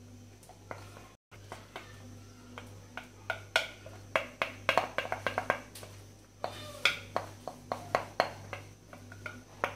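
Cake batter being poured from a glass mixing bowl into a cake pan: irregular small clicks and wet taps, sparse at first and several a second from about three seconds in, over a low steady hum. The sound cuts out completely for a moment about a second in.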